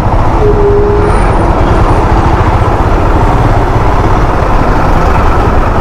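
Royal Enfield Himalayan's single-cylinder engine running at low speed among idling trucks in a traffic jam: a steady, loud low rumble of engine and traffic, with a short single tone like a distant horn about half a second in.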